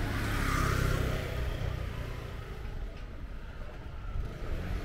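A motor scooter passing close by, its engine swelling in the first second and then fading. Steady low street rumble remains.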